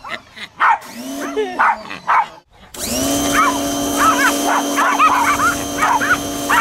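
A small dog whines and yips in rising and falling cries; about three seconds in, a pressure washer's motor comes in and runs steadily, with the hiss of its spray jet, while dogs yap excitedly at the spray.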